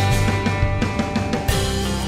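Background music: a guitar-driven track with a drum-kit beat.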